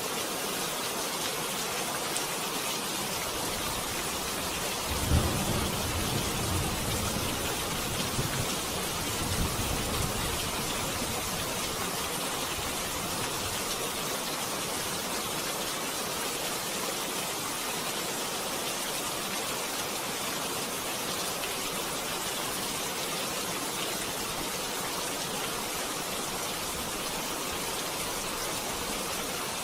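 Steady rain falling, an even hiss throughout, with a low rumble of distant thunder starting about five seconds in and fading out by about ten seconds.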